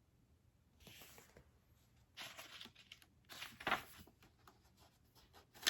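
Paper rustling as picture-book pages are handled and turned, in four short bursts, the last the loudest.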